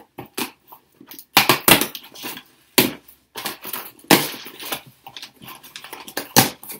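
Cardboard parcel being torn open by hand: irregular ripping and crackling, with a few sharp, loud rips.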